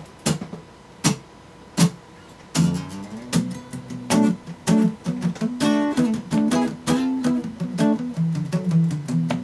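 Three sharp, evenly spaced taps about three quarters of a second apart count in a live song. About two and a half seconds in, a guitar starts strumming a bluesy chord riff.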